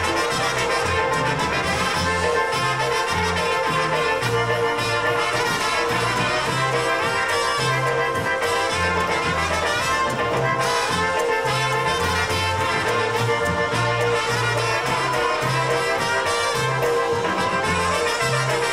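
Live polka band playing, trumpets leading over a bouncing bass line that alternates between low notes in a steady two-beat pulse.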